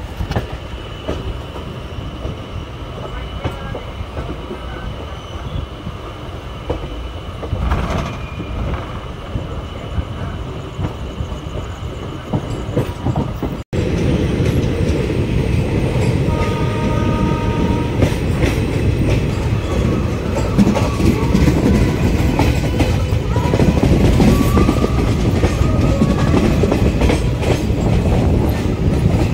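ICF passenger coaches of an express train running on the track, with steady rumbling and the clickety-clack of wheels over rail joints. About halfway through it jumps abruptly to a louder, heavier stretch.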